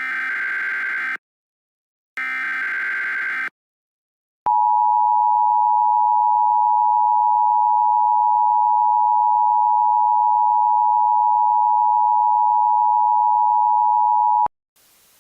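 Emergency Alert System broadcast tones: two short raspy digital data bursts of the SAME header, about a second each with a pause between, then the EAS two-tone attention signal, a loud steady dual tone held for about ten seconds that cuts off abruptly, leaving faint hiss.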